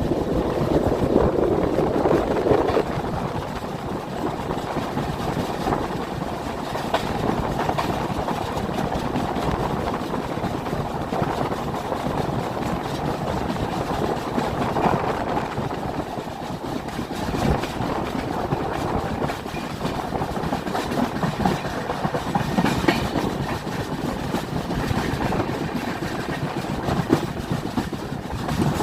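Saraighat Express passenger train running on the rails: a steady rumble with scattered clacks of the wheels over the track.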